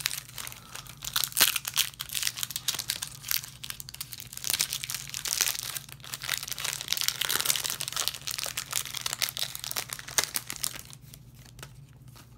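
Foil trading-card booster pack wrapper crinkling as it is handled and opened, a dense crackle that dies down near the end.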